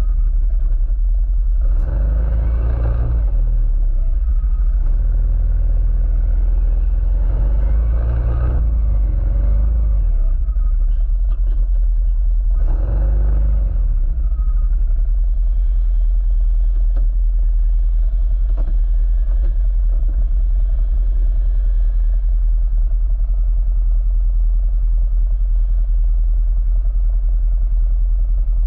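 Off-road vehicle being ridden on a trail: a steady deep rumble of engine and wind on the camera, with louder surges about 2, 8 and 13 seconds in.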